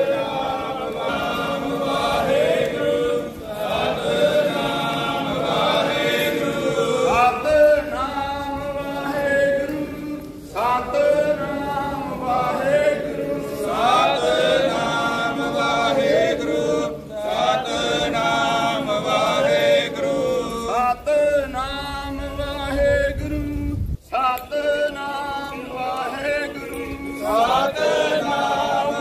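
A group of voices singing a Sikh devotional chant together in long phrases, breaking off briefly twice.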